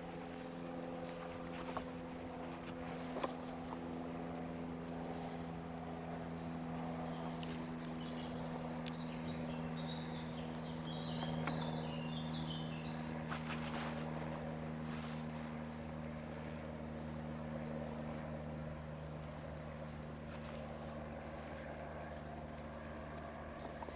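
Steady mechanical hum with several pitches held at once, from an unseen motor or engine. Small birds chirp in the background around the middle, a thin high peep repeats more than once a second through the second half, and there are a few sharp taps early on and once near the middle.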